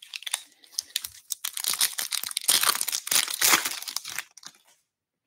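Foil wrapper of a 2023 Bowman Baseball hobby pack being torn open and crinkled by hand. It stops near the end.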